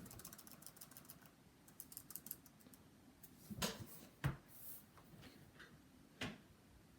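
Typing on a laptop keyboard: quick runs of light key clicks, then a few single, louder taps.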